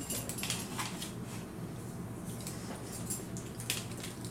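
Scattered light clicks and taps of hands handling and posing a Hot Toys 1/6-scale War Machine Mk IV action figure, its plastic and diecast parts and joints knocking as the arms are moved.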